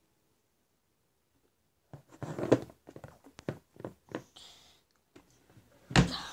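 Handling noise on the recording device: no sound at first, then from about two seconds in a run of scrapes, rubs and knocks as it brushes against bedding, and one loud bump near the end.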